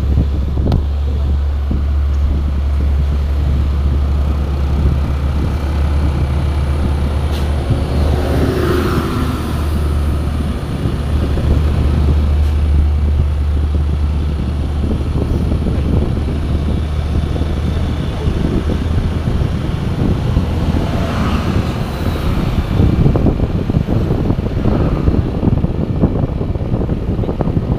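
Steady low engine drone with road noise from a moving vehicle. The drone eases off about twenty seconds in.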